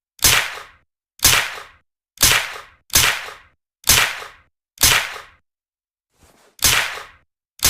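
Suppressed Uzi submachine gun sound effect: single sharp shots, about one a second, eight in all, each with a short fading tail, with a longer pause before the last two.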